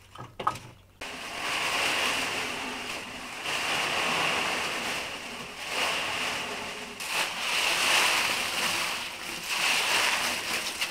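Dry leaves rustling and crackling as they are heaped, set burning and stuffed by hand into a clay tandoor to fire it. A dense, steady crackling rustle starts suddenly about a second in.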